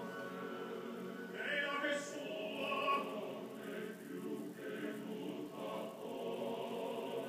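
Classical choral music with sustained sung notes, swelling louder about two to three seconds in.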